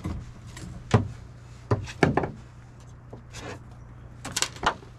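Several irregular knocks and clatters, the loudest about a second in, over a steady low hum.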